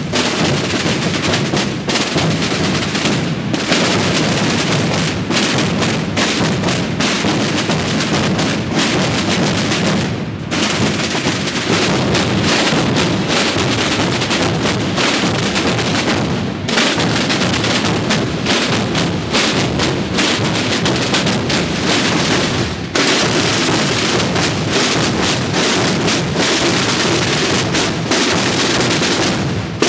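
Massed processional drumming: many rope-tensioned tambores and bass drums (bombos) beaten together in a dense, continuous roll. The sound drops away briefly three times before carrying straight on.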